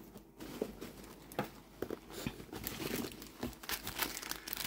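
Paper packaging crinkling and rustling as it is handled, a string of small irregular crackles and rustles.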